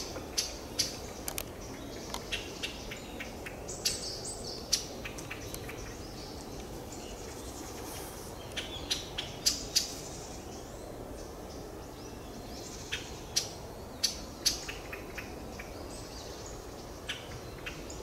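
Pale thrush giving short, harsh 'jakkya' calls, a few in quick succession at a time with pauses between.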